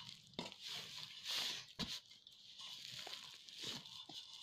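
Hands kneading and pressing maida dough in a steel plate: irregular soft rustling and scraping, with a few light knocks on the metal, the sharpest about two seconds in.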